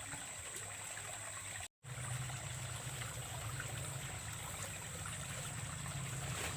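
Water trickling steadily in a ditch, with a thin steady high-pitched tone over it; the sound cuts out completely for a moment just before two seconds in and resumes slightly louder.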